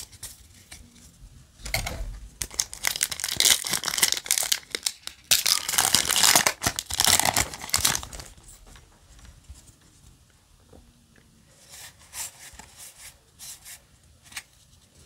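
A Yu-Gi-Oh! Lightning Overdrive foil booster pack being torn open and its wrapper crinkled, in loud rustling bursts from about two to eight seconds in. After that come quieter rustles and clicks of the cards being handled.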